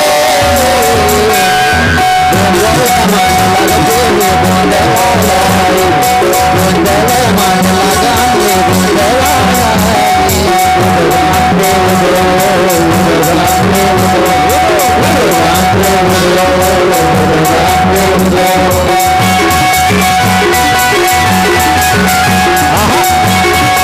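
Marathi devotional gondhal song music: a fast, steady drumbeat under a wavering melody line and a held drone tone, loud and even throughout.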